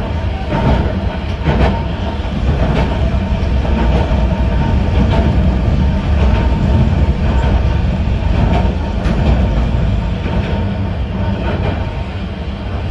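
A narrow-gauge (762 mm) electric train running, heard from inside its front cab: a steady low rumble of the wheels on the track, broken by scattered clicks as the wheels pass rail joints.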